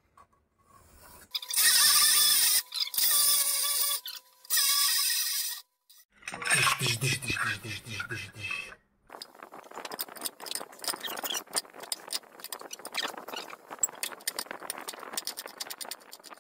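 Hand tools working very hard wood: a few loud strokes with a steady squeal in them, then a long run of rapid scraping strokes.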